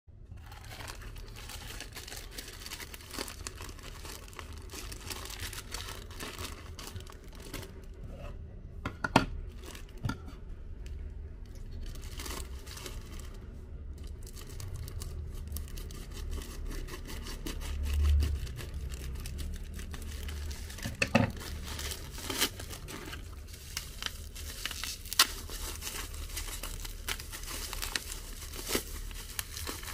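Plastic packaging crinkling and tearing: a black plastic mailer bag cut open with scissors, then clear plastic wrap pulled apart by hand, with many scattered sharp clicks and a few louder snaps.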